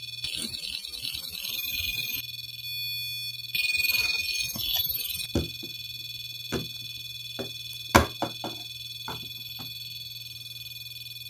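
REM pod sounding its high, pulsing alarm tone, set off at its antenna, which the owner takes for a spirit touching the aerial. Stretches of hiss in the first few seconds, then several sharp clicks and knocks, the loudest about eight seconds in.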